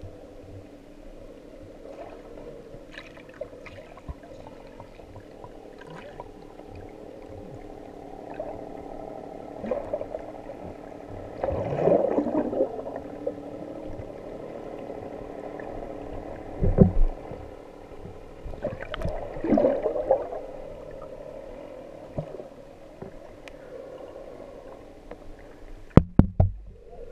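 Muffled underwater sound through a GoPro's waterproof housing: a steady low hum under murky water noise, with two swells of bubbling and sloshing about twelve and twenty seconds in. A few sharp knocks come near the end.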